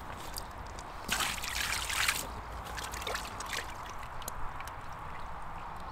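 Water splashing and dripping as a freshly caught common carp is handled in a wet landing net on the bank: a burst of splashing about a second in that lasts about a second, then scattered small taps and clicks, over a low steady rumble.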